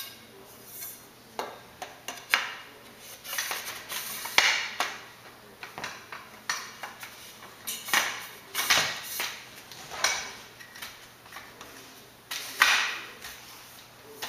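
Aluminium tubing of a bicycle trailer frame clanking and rattling as it is handled and fitted together: irregular metallic knocks and clinks, some ringing briefly, with the loudest clank about four and a half seconds in and another near the end.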